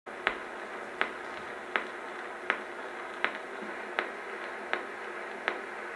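Surface hiss of an Edison Diamond Disc record turning in its lead-in groove on an acoustic phonograph. A click sounds once per turn, about every three-quarters of a second, matching the disc's 80 rpm speed: eight clicks in all.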